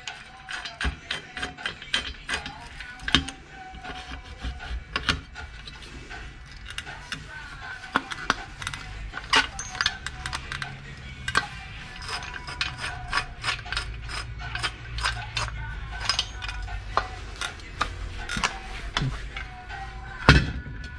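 Trojan folding camping shovel being worked by hand and folded up: its metal hinges and swivel joint click, clack and ratchet irregularly, with a sharper knock near the end.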